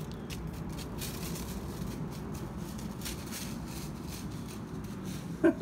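A dog running through dry fallen leaves, the leaves rustling and crackling in short spells, over a steady low background hum. Near the end a quick series of loud barks begins.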